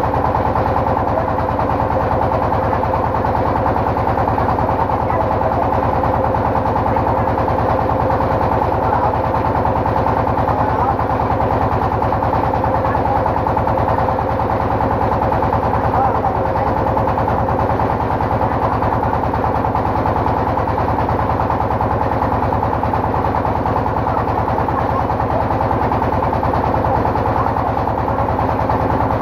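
Boat engine running steadily at a constant speed, with an even, rapid pulsing and a steady hum.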